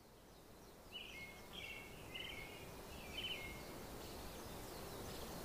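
Small birds chirping in a few short bursts of high notes over a faint, steady outdoor background noise that slowly grows louder.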